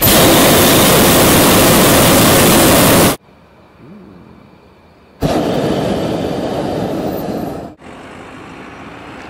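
Hot-air balloon propane burner firing: a loud, even rushing blast for about three seconds that cuts off suddenly. About two seconds later a second, lower rushing blast lasts a couple of seconds and stops, leaving a softer steady hiss.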